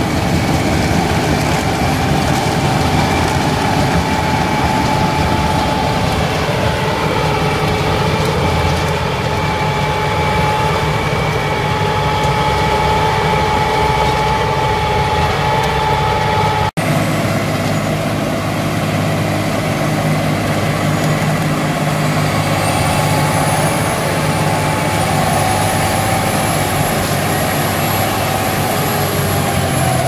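Valtra S352 tractor's six-cylinder diesel running at high revs under heavy load, driving a Valentini Demonio 2000 forestry mulcher through the PTO as its rotor grinds stubble, soil and roots. A loud, steady drone with a whine on top cuts out for an instant about halfway through, and its pitch sags slightly near the end as the load bites.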